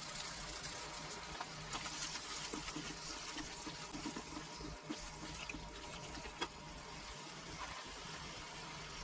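Chopped vegetables with tomato sauce sizzling in a nonstick frying pan while a spatula stirs them: a steady frying hiss with scattered crackles, and one sharp tap about six and a half seconds in.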